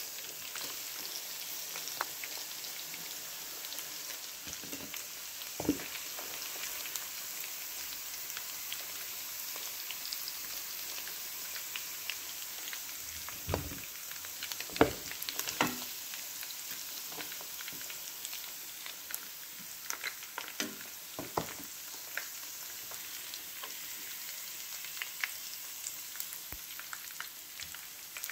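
Pork frying down in its own hot rendered fat in a pan: a steady sizzle with scattered crackles and pops. A few louder knocks stand out around the middle.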